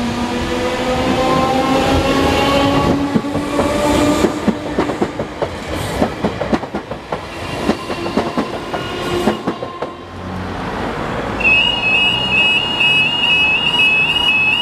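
London Overground electric multiple unit accelerating over the level crossing: its traction motors give a rising whine and its wheels clatter over the rail joints. It passes, and about three quarters of the way in the crossing's warbling audible alarm starts up, repeating at an even rate as the warning sequence for the next closure begins.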